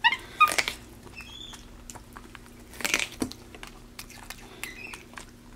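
Capuchin monkey biting and chewing kernels off a corn cob: scattered short crunches and clicks, loudest near the start and again about three seconds in.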